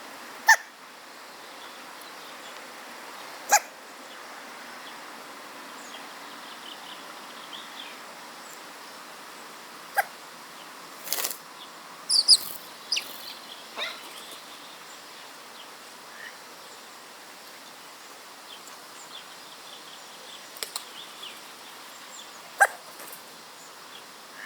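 Hooded crow fledgling hiccuping: short, sharp hics at uneven gaps, sometimes several seconds apart, bunched closer together around the middle. A few high chirps come in among them.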